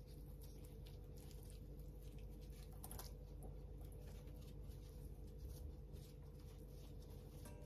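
Paper towel crinkling and rustling in the hands as squeezed silken tofu is unwrapped from it into a bowl, in soft irregular crackles with one sharper crackle about three seconds in.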